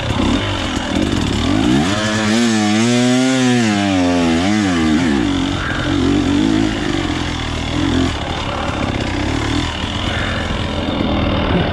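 Off-road dirt bike engine running hard over rough trail, its pitch rising and falling several times in a row about two seconds in as the throttle is worked, over a constant rough rattle and wind noise.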